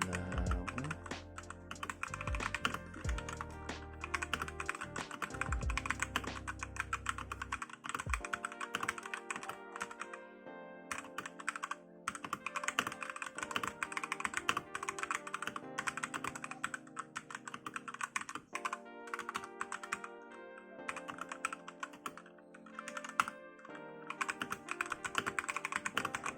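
Fast typing on a Machenike K500 mechanical keyboard with linear red switches and PBT keycaps: rapid runs of keystrokes broken by a few short pauses, with background music underneath.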